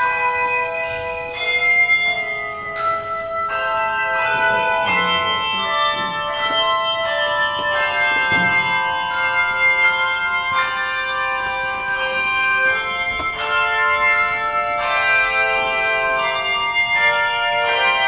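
Handbell choir playing a hymn arrangement: handbells struck in quick succession, each note ringing on and overlapping the next, so several pitches sound together.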